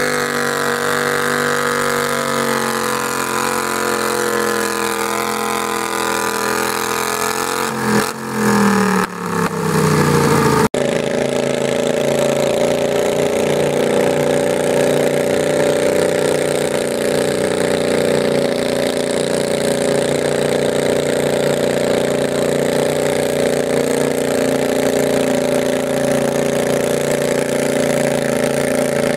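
Garden tractor engine running loud and steady. About eight seconds in its pitch falls away with a couple of dips, then after an abrupt cut an engine runs steadily again.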